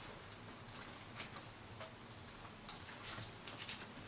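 Faint, scattered plastic clicks and scrapes from hands working at the side marker light on a removed plastic front bumper cover.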